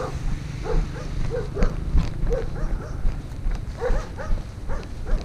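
Belgian Malinois giving a dozen or so short whining yelps at irregular intervals as it strains on the leash during a search, over a low rumble of wind on the microphone.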